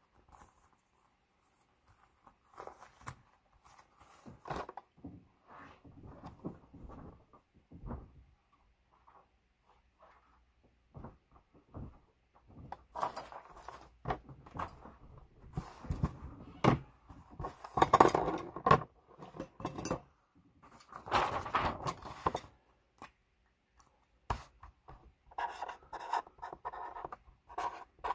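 Intermittent scratching and rubbing with scattered sharp clicks, busiest in the middle stretch.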